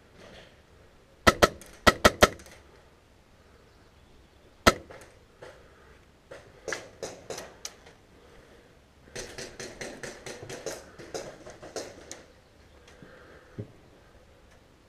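Airsoft guns firing: a loud burst of about five sharp shots a second in, a single loud shot near five seconds, then quieter, quicker runs of shots later on.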